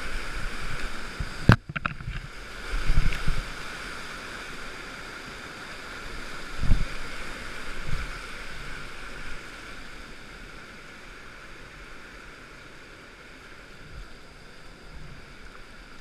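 Rushing whitewater of a river weir heard from a kayak, with a sharp knock about a second and a half in and a few low thumps against the boat or microphone. The rush of water eases off in the second half as the boat reaches calmer water.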